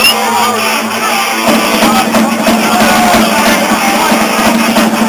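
Live rock band playing loudly, with guitar and drum kit. The sound grows fuller, with the drums driving harder, about a second and a half in.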